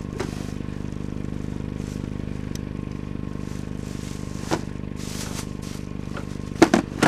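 A vehicle engine idling steadily, with a few sharp knocks and some rustling as a scavenged item is handled, the knocks loudest near the end.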